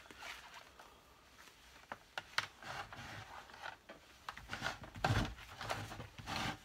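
Scattered small clicks, knocks and rustling scrapes of handling a cordless drill's spare battery, its charger and lead, busiest near the end.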